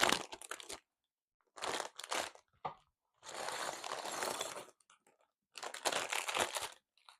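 Plastic LEGO parts bags crinkling as they are handled and torn open, in about five separate bursts with silent gaps between them, the longest a second and a half long in the middle.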